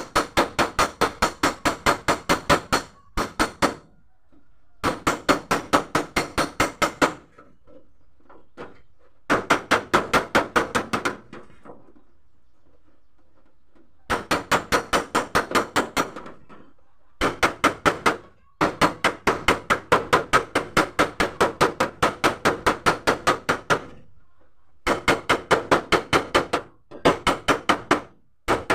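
Rapid tapping of a flat body-repair tool on the door of a Mitsubishi L300 van, working out a dent without damaging the paint. The taps come about six a second in runs of a few seconds, with short pauses between runs.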